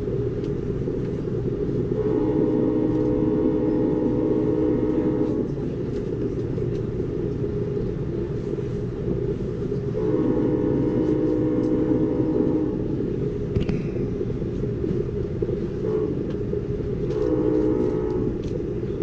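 Amtrak Cascades locomotive's multi-chime air horn sounding several long blasts, each a few seconds long, over the steady rumble of the moving train. It is the warning for the level crossings along the waterfront.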